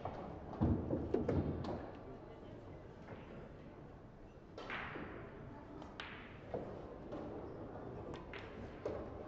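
Pool-hall room sound with a few low thuds in the first two seconds and two sharp, ringing knocks about halfway through.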